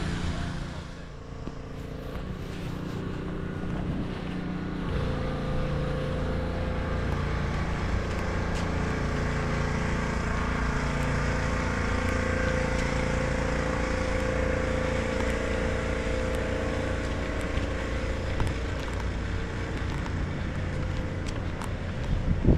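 Street traffic with a motor vehicle's engine running nearby: a steady low hum with an even pitch that comes up about five seconds in and holds.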